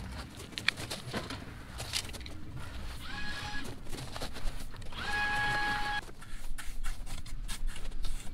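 Crunching and scraping of crushed-stone paver base under a steel rake and work boots, with scattered clicks of stone. Twice, about 3 s and 5 s in, a held whining tone slides up and then holds steady; the second is about a second long.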